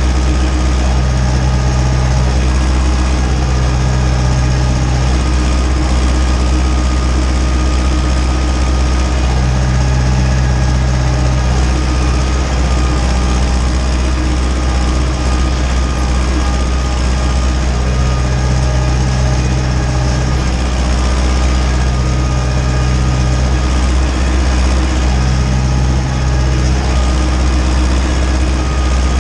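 Ursus tractor's diesel engine running steadily under load while pulling a seedbed cultivator across the field, heard from inside the cab, with a low drone that swells and eases a little every few seconds.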